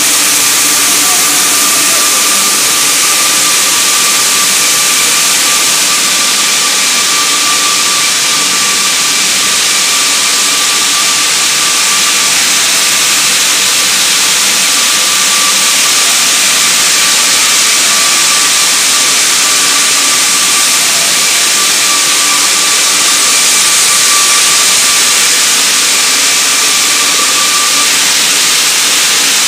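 Biscuit production line machinery running: a loud, steady hiss of conveyors and motors with a constant whining tone over it.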